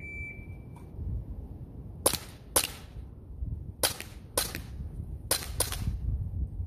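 Sig Sauer Air P320 X-Carry CO2 blowback 4.5 mm BB pistol firing six sharp shots in three quick pairs, over wind rumbling on the microphone. A short high beep sounds at the very start.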